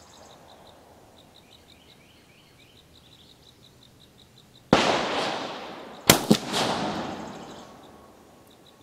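Two shots from an Uberti Walker .44 cap-and-ball revolver firing a full 55-grain powder charge behind a round ball, about a second and a half apart, the second one louder. Each shot cracks sharply and rings off slowly over about a second.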